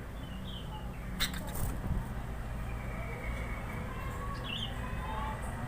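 Short chirps from a sooty-headed bulbul (kutilang), about half a second in and again near the end. A few sharp clicks come a little over a second in. A low steady hum runs underneath.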